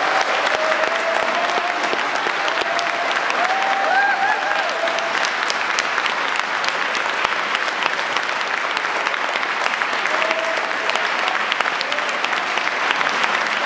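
Audience applauding steadily at the end of a solo piano performance.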